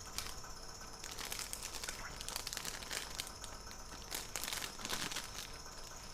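Plastic packaging crinkling as it is handled, in irregular runs of crackles from about a second in until near the end.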